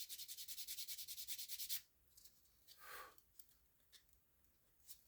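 Hand filing the edge of a small craft piece: quick, even back-and-forth scraping strokes, several a second, that stop about two seconds in, followed by a brief soft handling sound.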